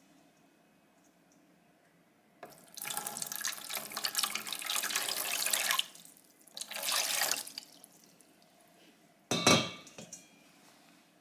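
Water poured into a clear container on a kitchen scale, in a long pour of about three seconds and then a shorter second pour. A single sharp knock comes about nine seconds in.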